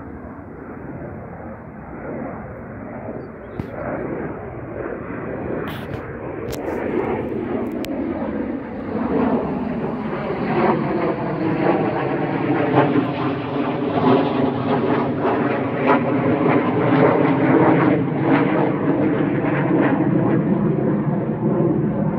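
Aircraft engine passing overhead, growing steadily louder with a slowly shifting, bending tone.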